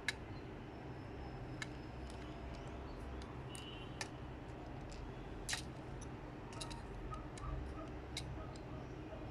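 Small plastic Lego pieces clicking as they are handled and pressed together, in scattered single clicks at irregular intervals over a low steady hum.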